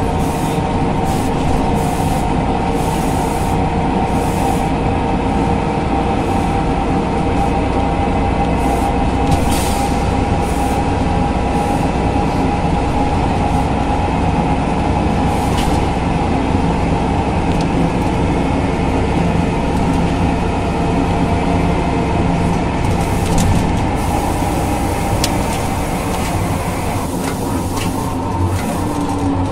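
Ikarus 415 city bus under way, its DAF LT 160L diesel engine running with the steady whine of the ZF 4HP 500 automatic gearbox and occasional clicks and rattles from the body. The sound eases off a little near the end.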